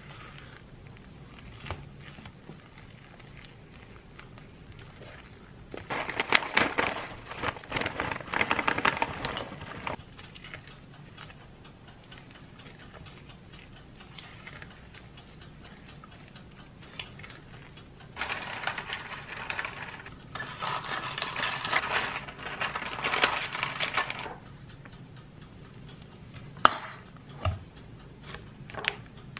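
Silicone spatula stirring and scraping thick chocolate chickpea dough around a stainless steel bowl, in two spells of a few seconds each. A few sharp knocks come near the end.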